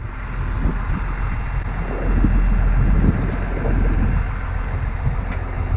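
John Deere 544G wheel loader's diesel engine idling steadily.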